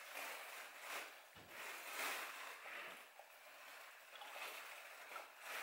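Water pouring into a drinking glass as it fills, a running, splashing noise that rises and falls.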